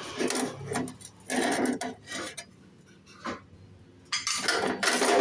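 Metal scraping and clinking against steel in several short bursts, then a longer, louder stretch near the end.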